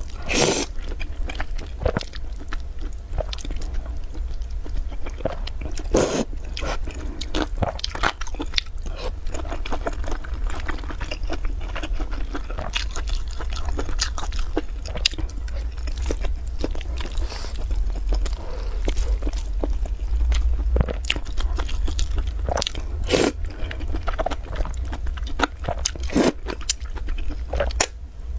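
Close-miked eating: noodles slurped off chopsticks and food chewed with many short, sharp wet smacks and clicks, over a steady low hum.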